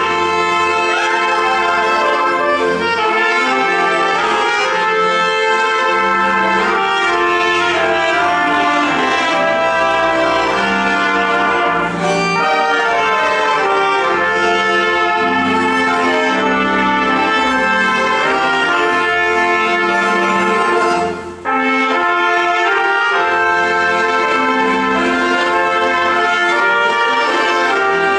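Polish highlander folk band (two trumpets, clarinet, violins and double bass) playing a funeral hymn, the trumpets leading the melody over held chords, with a brief break in the sound about twenty-one seconds in.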